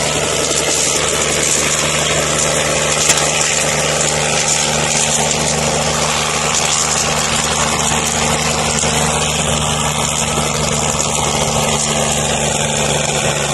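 Helicopter running close by, its engine and rotor making a loud, steady sound with an unchanging pitch.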